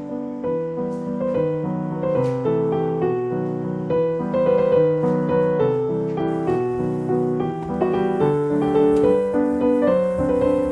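Background music: a gentle piano melody played over chords.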